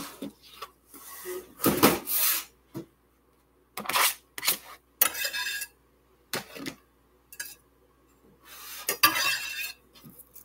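A kitchen knife scraping and tapping minced garlic off a cutting board into a ceramic casserole dish of cubed root vegetables: a string of separate scrapes, clinks and clatters with short pauses between them.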